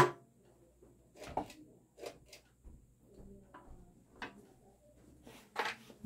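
Handling clicks and knocks at a vintage Hunter (Robbins & Myers) Comfort Breeze ceiling fan while its reverse switch on top of the motor housing is set: a loud knock at the start, then a string of lighter clicks and taps, with a louder brief rustle near the end.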